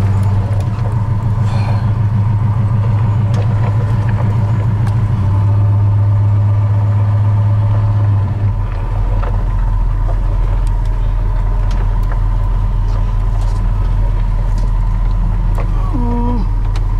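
Chevy C30 truck's 383 stroker V8 running while driving, a steady engine note that drops to a lower pitch about eight seconds in.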